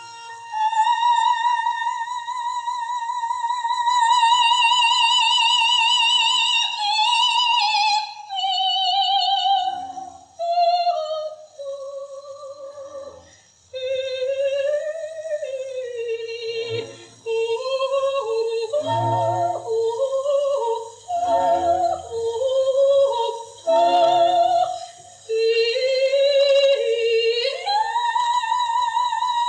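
Operatic soprano singing solo with wide vibrato. She holds a long high note for several seconds, moves through shorter, lower phrases with breaks between them, and climbs near the end to another sustained high note. A faint low hum runs underneath.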